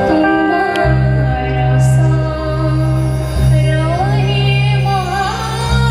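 Live stage music: a woman singing a folk song over instrumental accompaniment with sustained deep bass notes, her voice coming in clearly about four seconds in.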